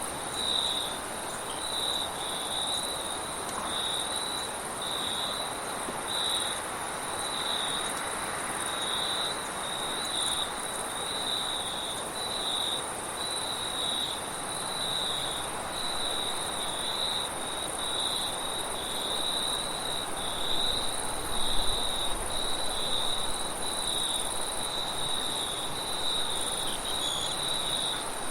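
Crickets chirping in a steady, even rhythm, with a continuous high insect trill above them, over a soft hiss of wind; a low gust swells briefly about two-thirds of the way through.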